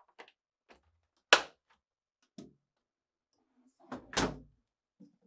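Plastic port collar on a GE french door refrigerator's door snapping into its housing with one sharp click, the sign that it has seated, after a few faint ticks as it is pressed. About three seconds later comes a heavier, deeper thump as the refrigerator door is moved.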